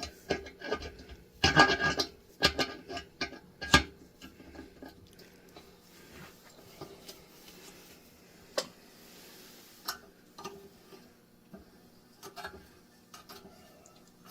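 Hand tools working on a metal engine block: clusters of small metallic clicks and scraping, densest in the first few seconds with a sharper knock about four seconds in, then sparser, quieter clicks.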